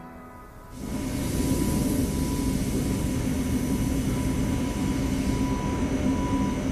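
Steady drone of factory machinery sets in about a second in: a low rumble with a thin, steady whine above it.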